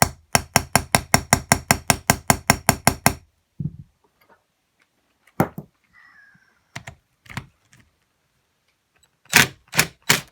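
Rapid hammer taps on metal, about five a second, knocking at a stuck star-head screw on a two-stroke cylinder head; the tapping stops about three seconds in, followed by a few scattered knocks and clanks of tools on the bench.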